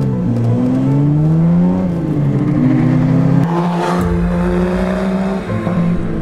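Jaguar C-Type recreation's 3.4-litre straight-six engine revving under acceleration: its pitch rises, drops at a gear change about two seconds in, then climbs again. The sound changes abruptly a little past halfway, with a brief rush of noise.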